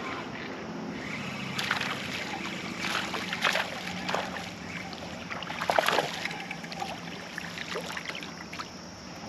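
Water splashing and sloshing in several short, irregular bursts over the steady rush of flowing creek water.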